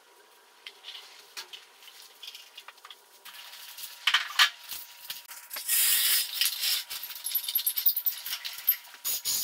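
Clinks and rattles of metal tools and parts during hand work on a truck, growing busier about four seconds in, with stretches of hiss.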